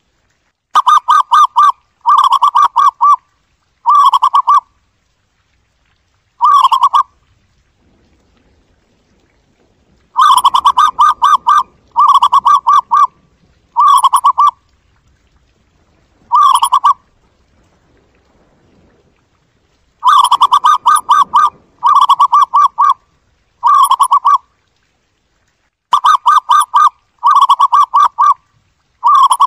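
Zebra dove calling: loud phrases of rapid staccato cooing notes, each phrase about half a second to a second long. The phrases come singly or in quick pairs, with pauses of a second to three seconds between them.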